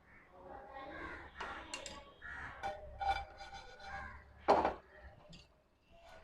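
Bread cubes being stirred and roasted in a dry pan, with a sharp clank of the spatula against the pan about four and a half seconds in and a few lighter clicks. A bird calls several times in short harsh calls in the background.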